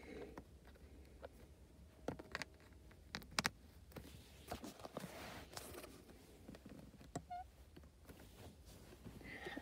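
Faint clicks and taps of plastic LEGO minifigures being handled and set down on a LEGO baseplate. A few sharper clicks come about two to three and a half seconds in, and a brief squeak comes near the end.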